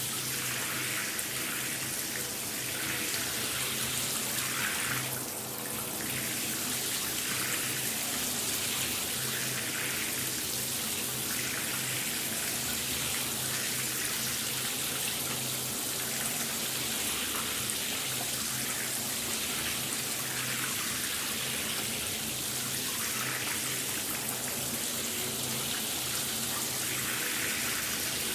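A shower running: steady hiss of water spraying and splashing, with a brief dip about five seconds in.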